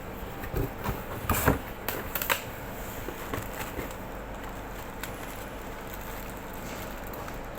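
A few sharp clicks and knocks from handling the packaging and product, clustered a second or two in, over a steady low background hum.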